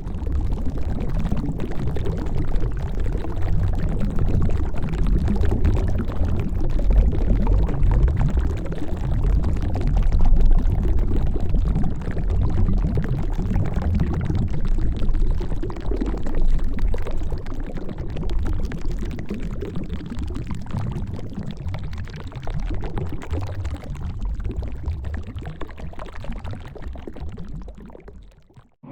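Underwater sound effect: muffled, low rushing and bubbling water, surging and fading unevenly. It tapers off and ends near the end.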